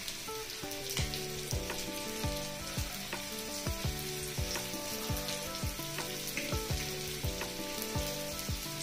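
Murrel fish steaks sizzling steadily in shallow oil on an iron dosa pan over a low flame, with background music playing a melody over a steady beat.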